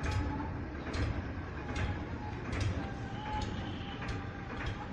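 Tractor diesel engine idling, with a sharp click repeating a little faster than once a second.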